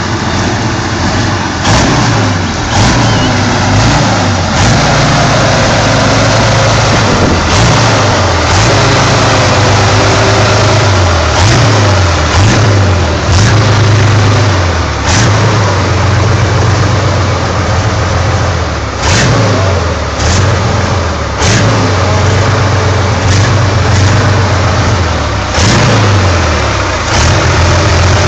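Big engine of a huge custom trike running with a deep, loud note and being revved up and down repeatedly, the pitch climbing and dropping again several times between steadier stretches.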